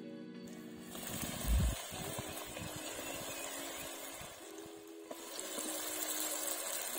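Vegetable Manchurian balls sizzling as they are dropped one by one into hot oil in a kadai; the sizzling starts about a second in, with a dull thump about a second and a half in.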